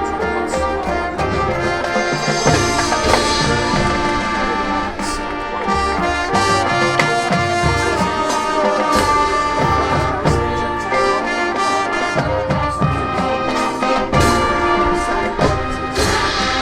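High school marching band playing: the brass section holds loud sustained chords over the drumline's percussion, with crashes near the start and near the end.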